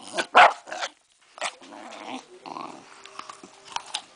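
Rat terrier crunching into an apple: a few sharp crunches in the first second and another about a second later, then quieter chewing and smacking.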